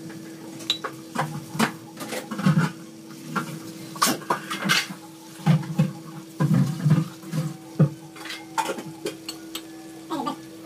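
Scattered clinks and knocks of a steel pan and metal utensils, irregular throughout, over a steady low hum.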